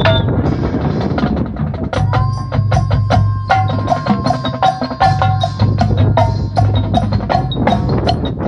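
High school marching band playing, with the percussion to the fore: from about two seconds in, a steady run of sharp clicking strikes and short ringing pitched notes over a held low tone.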